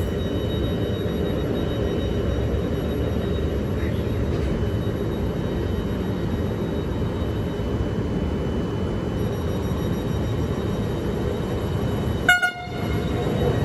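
Train running through the station with a steady rumble and a faint high whine, then one short horn toot near the end.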